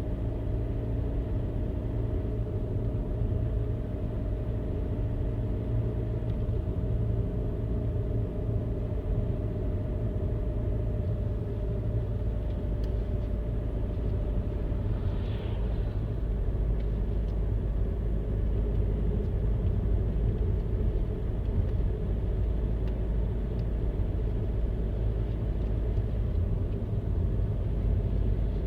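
A car driving at a steady speed: continuous low road and engine rumble with a faint steady hum above it.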